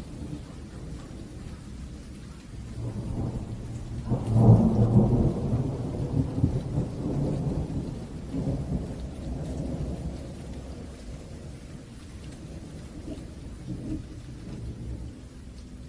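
Steady rain falling, with a long roll of thunder that builds a few seconds in, peaks loudest around the fourth or fifth second and rumbles away over the following several seconds.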